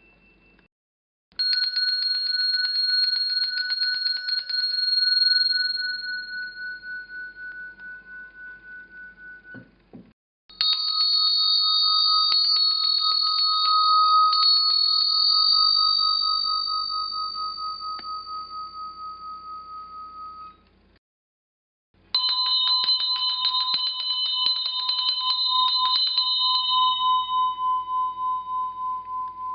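Three bells sounded one after another, each struck rapidly for a few seconds and then left to ring out and fade, with short silent gaps between them.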